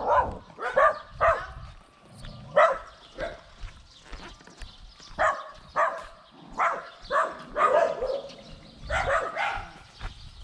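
A dog barking repeatedly in short, irregular barks, a little over one a second, with a brief pause near the start.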